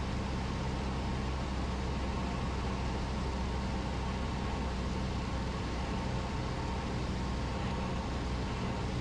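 Cessna 172's piston engine and propeller running steadily in flight, a constant low drone heard inside the cabin along with the rush of air over the airframe.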